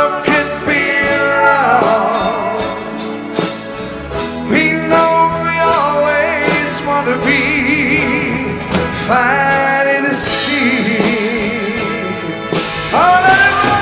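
A song playing: a singer holding long notes with vibrato over instrumental accompaniment.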